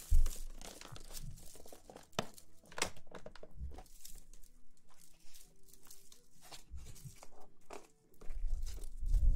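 Close-miked rustling and crinkling, a run of irregular crackles and small sharp clicks, with a low thud at the start and a longer low rumble near the end.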